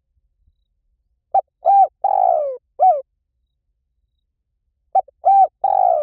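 Spotted dove cooing: a phrase of a short note, an arched coo, a longer falling coo and another arched coo, given twice about three and a half seconds apart.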